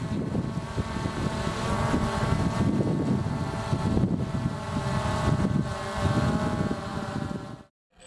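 DJI Phantom 2 quadcopter hovering: its four propellers give a steady, even whine, with gusty wind buffeting the microphone underneath. The sound cuts off near the end.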